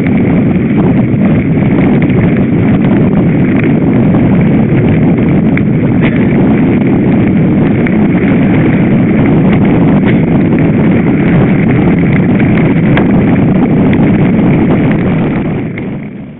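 Loud, steady rumble of wind buffeting the microphone of a camera on a moving mountain bike, mixed with tyres rolling on a gravel dirt track and scattered small clicks and knocks. It dies away near the end as the bike slows to a stop.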